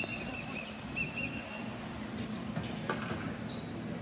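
Sneaker soles squeaking on a ball hockey court: a few short, wavering squeaks in the first second and a half. Scattered sharp clacks of sticks and ball are heard over a steady low hum.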